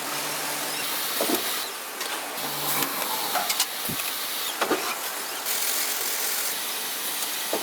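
Factory machinery noise: a steady hiss with several short clanks and brief low hums.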